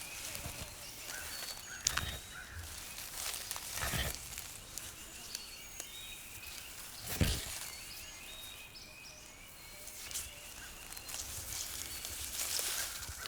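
Outdoor ambience at a garter snake den: faint bird chirps, with a few short rustles, a little louder about a third and half way in, as the snakes move over dry ground.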